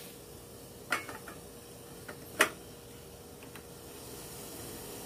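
Aluminium steamer tier clanking as it is set down onto a metal cooking pot: a knock about a second in and a louder one a second and a half later, with a few lighter taps, over a faint steady hiss.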